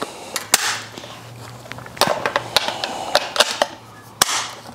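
Boxlock side-by-side shotgun being reassembled and handled: a series of sharp metal clicks and knocks from its parts, the loudest just over four seconds in.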